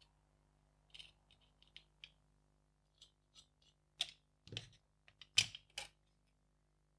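A run of small, sharp clicks and taps from parts of an opened battery case being handled, growing louder toward the end with a few firmer knocks about four to six seconds in.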